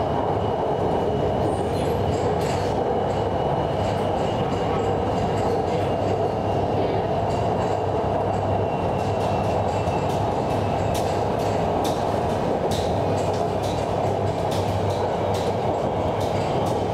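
Hanoi Metro Line 2A electric train running at steady speed on its elevated track, heard from inside the car: an even rumble of wheels and running gear with a faint high whine over it. Light clicks come more often in the second half.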